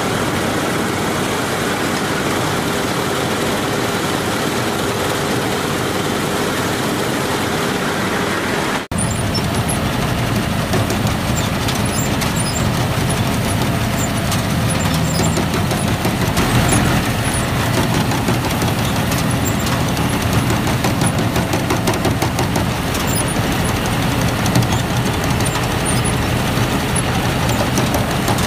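Combine harvesters running while cutting wheat: steady engine and machinery noise. A little under nine seconds in the sound cuts out for an instant and goes on from another machine, a New Holland 8070 combine, with a stronger low engine hum.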